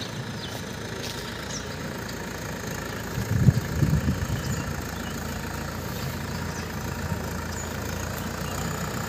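Mahindra 575 DI tractor's diesel engine running steadily at low speed while the tractor moves slowly over soft ground, growing louder and rougher for a second or so about three seconds in.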